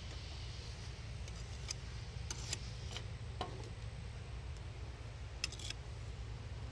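A scattering of light clicks and taps from hive equipment being handled, over a steady low rumble.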